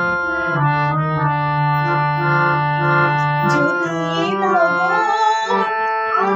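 Keyboard backing music with held, organ-like chords. About four seconds in, a wavering lead melody comes in over them.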